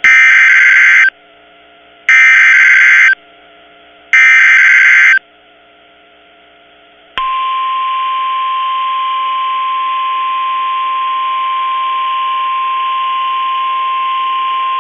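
NOAA Weather Radio emergency alert: three one-second bursts of the SAME digital header, a harsh data warble, then about seven seconds in the steady 1050 Hz warning alarm tone starts and holds over a hiss. The sequence signals that a warning is about to be read, here a winter storm warning.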